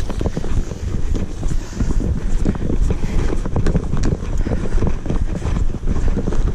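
Footsteps of a person walking briskly through dry grass, about two to three steps a second, over steady wind buffeting the microphone.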